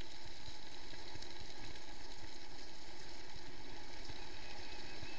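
Mountain bike rolling down a gravel track: a steady rush of tyre and riding noise with many small, irregular low knocks as the bike jolts over the loose gravel.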